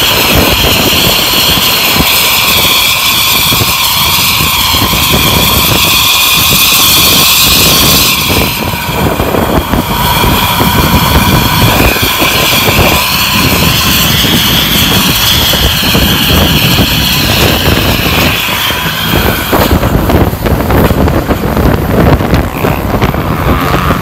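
Bus with a 'srigala' (wolf) aftermarket exhaust running hard: a loud, jet-like howl of steady high tones over the engine's rough rumble, like an aircraft. The howl dips briefly about a third of the way in and fades near the end, leaving the rumble.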